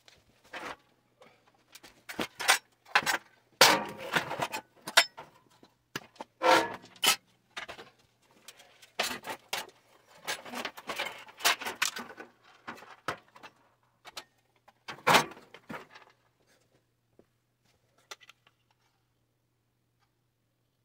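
Loose pieces of scrap metal clinking and clattering as they are handled, in a quick irregular run of sharp clinks that thins out to a few faint ticks after about fifteen seconds.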